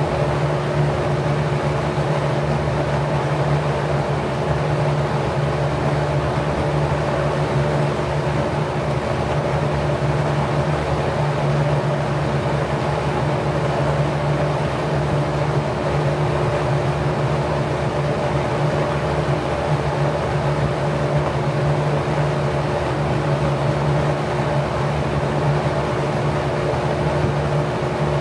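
Single-speed Packard 99319 1/5 hp electric motor running at 1050 rpm, spinning a LAU 20-inch four-blade 27° pitch propeller. It makes a steady low hum with a faint higher tone over the rush of air from the blades, unchanging throughout.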